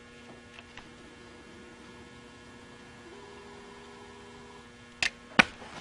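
Steady electrical mains hum, with an extra, slightly higher tone joining for about a second and a half past the middle. Two sharp clicks come near the end.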